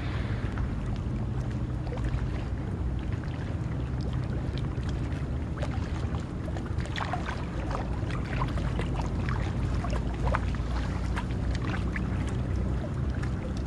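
Small waves lapping and splashing against rocks at the water's edge, with a flurry of small splashes through the middle, over a steady low rumble of wind on the microphone.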